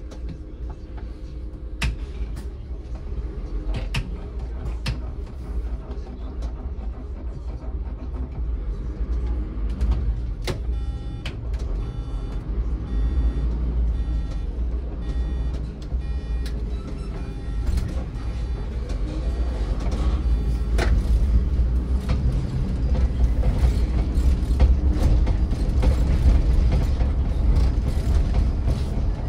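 City bus driving, heard from on board: a steady low engine and road rumble that grows louder in the second half as the bus gathers speed, with a few knocks and rattles and a run of short, evenly spaced beeps in the middle.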